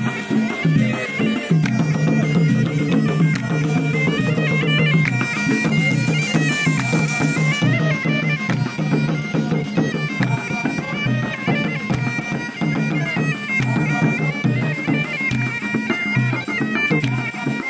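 A traditional Gulf folk band playing: a bagpipe melody that moves in steps over a steady drone, with hand-held drums beating along.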